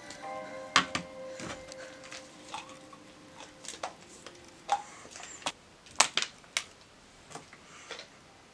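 A scattered series of sharp clicks and taps at irregular spacing, the loudest about a second in and again about six seconds in. A held music chord fades out in the first second and a half.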